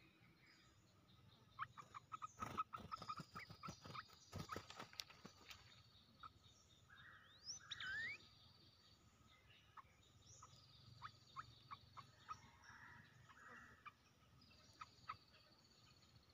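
Olive-winged bulbul calling faintly: scattered short chip notes, a quick rising whistle about eight seconds in, and a run of clicks and rustling a few seconds in as the bird moves in its wire trap cage.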